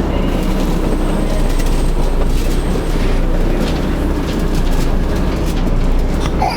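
Volvo B7TL/Wright Eclipse Gemini double-decker bus on the move, heard on board: a steady low rumble of its six-cylinder diesel engine and road noise, with irregular ticking clicks scattered through the middle.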